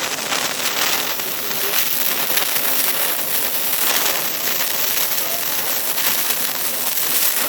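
A loud, steady hissing rush of noise, brightest in the treble, with no distinct events in it.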